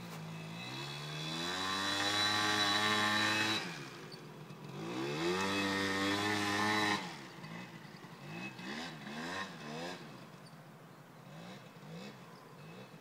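Suzuki LT80 quad's small two-stroke engine revving hard twice on a climb, each rising to a high, held note and then dropping off sharply. After that it runs quieter, with the throttle going up and down as the quad moves away.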